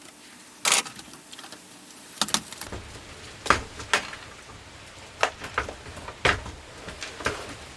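Hands taking apart a laptop: a string of separate sharp clicks and knocks of small plastic and metal parts, about eight in all, with a low rumble starting about a third of the way in.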